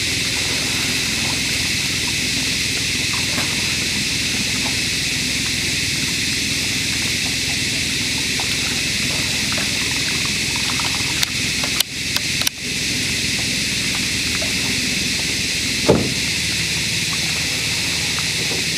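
Steady hiss that cuts out briefly twice a little past the middle, with one short thump about three-quarters of the way through.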